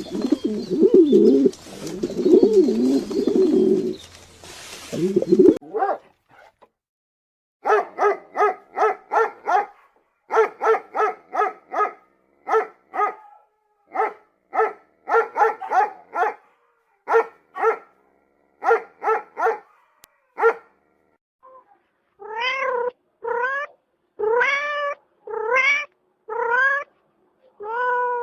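Animal calls. First a low wavering sound, then a long run of short pitched calls about three a second, then longer rising calls about one a second near the end.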